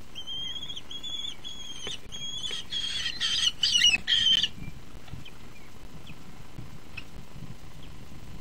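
Young common kestrels calling from the nest box: a series of high, evenly spaced calls, then louder, harsher calls with wing flapping. The calling stops about four and a half seconds in.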